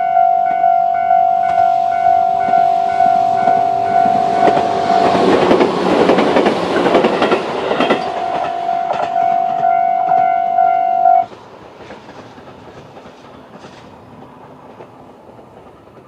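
Japanese level-crossing alarm ringing its repeated electronic ding, a little under two a second. A Tobu 800 series electric train passes loudly about 4.5 to 8 seconds in. The alarm cuts off suddenly about 11 seconds in, leaving the train's sound fading away.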